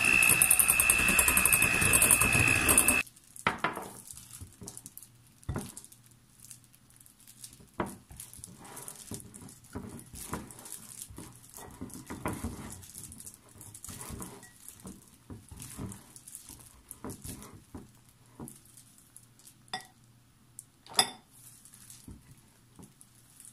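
Electric hand mixer running at speed in a glass bowl of cream, a steady high whine that cuts off about three seconds in. After it, a silicone spatula scrapes and taps the whipped cream against the glass bowl in short, irregular strokes, with one sharper knock near the end.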